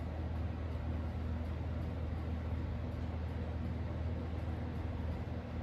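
Steady low hum with a faint even hiss: room tone, with no distinct sounds.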